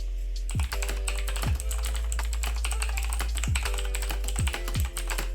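Rapid typing on a Lexma K900 mechanical keyboard with clicky blue switches: a fast, dense run of keystroke clicks, with background music underneath.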